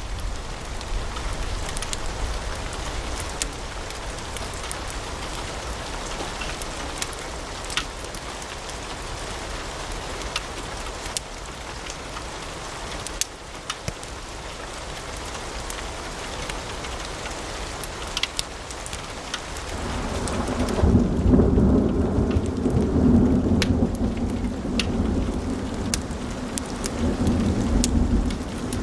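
Wood fire in a fireplace crackling, with sharp pops and snaps over a steady hiss. About twenty seconds in, a louder low rumble comes in and lasts nearly to the end.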